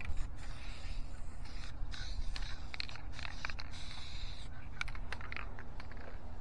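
Duplicolor vinyl and fabric aerosol spray can hissing in a couple of short bursts, among scattered clicks and handling noise over a low steady rumble.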